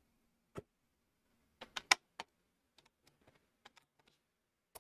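Plastic Lego pieces clicking and snapping together by hand: a few sharp separate clicks, the loudest cluster about two seconds in, then fainter ticks.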